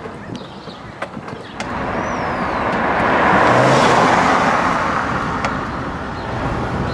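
A yellow taxi cab passing close by. Its engine and tyre noise swells, peaks about four seconds in, then slowly fades.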